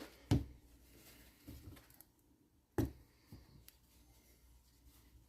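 Handling noises on a workbench: two sharp knocks about two and a half seconds apart, with faint clicks and rustles between them.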